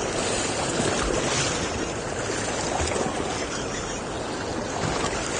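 Steady rush of wind and choppy water around a small boat on open water.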